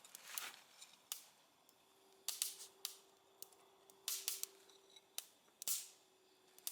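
Wood fire crackling in a folding fire pit, with irregular sharp pops and snaps.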